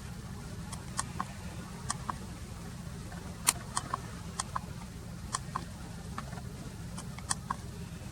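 A steady low engine hum with about a dozen sharp, irregularly spaced ticks and clicks over it, the loudest about three and a half seconds in.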